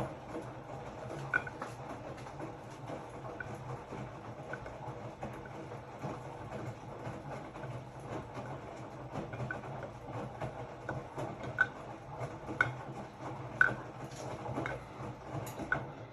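Hotpoint-Ariston RSG 825 J front-loading washing machine in its wash cycle: the drum motor hums steadily while the laundry tumbles in the drum, with a soft knock or slosh about once a second.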